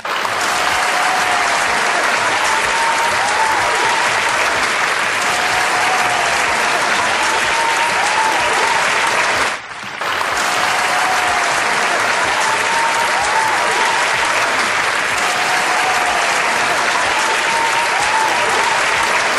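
A large audience applauding steadily, a dense even clatter of many hands, with a faint rising-and-falling tone recurring over it. The clapping drops out for a moment about ten seconds in, then carries on as before.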